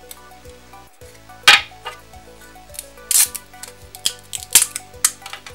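3D-printed plastic support material snapping and crackling as it is peeled off a printed part by hand: a string of sharp snaps, the loudest about a second and a half in and again near three and four and a half seconds, over soft background music.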